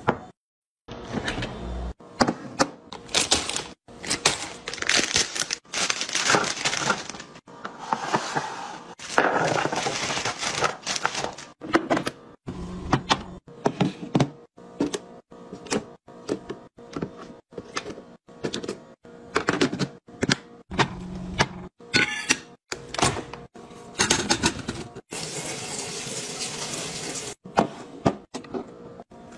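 Kitchen restocking handling sounds: a cabinet door opening and a glass container set down and moved about on the counter, making a long string of sharp clicks and knocks with a few longer noisy stretches between them.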